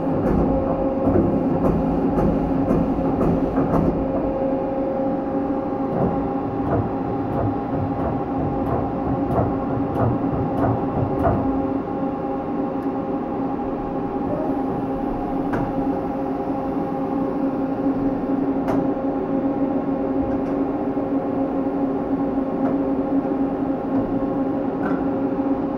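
Miyano JNC-35T CNC lathe running: a steady machine hum made of a few fixed tones, with scattered sharp clicks now and then.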